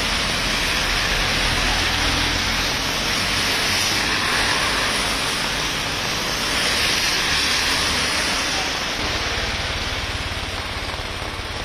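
Heavy rain falling as cars drive on a wet road: a steady hiss of rain and tyre spray over a low engine rumble, easing a little near the end.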